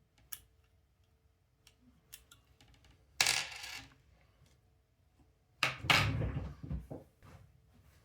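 Small metal watch parts and tools clicking and clattering as they are handled and set down on a hard work surface. A few light ticks come early, then two louder bursts of handling noise about three and six seconds in.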